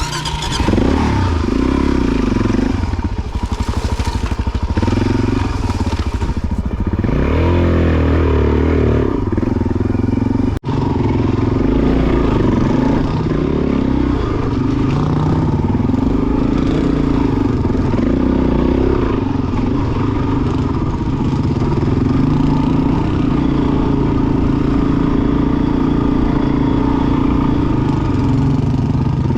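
Four-stroke single-cylinder 400 cc dirt bike engine running under throttle, the revs rising and falling, with a clear rev-up around seven to eight seconds in. The sound cuts out for an instant about ten seconds in, then the engine runs on at a steadier pitch.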